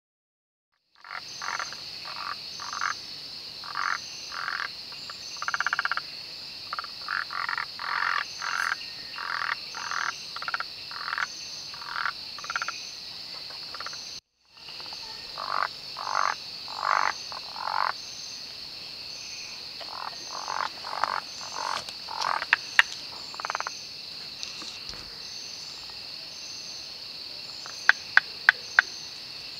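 Malabar gliding frogs calling: short croaks repeated every half second to a second, over a steady high insect drone. A few sharp clicks come near the end.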